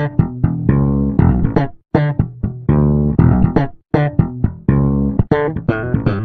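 Background music of plucked guitar and bass, played in short phrases broken by brief pauses about every two seconds.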